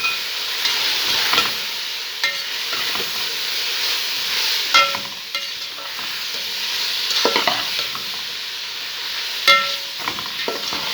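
Onions and garlic frying in oil with a steady sizzle while the spices are stirred in with a metal spoon. The spoon scrapes and knocks against the pan every couple of seconds, some knocks leaving a short metallic ring.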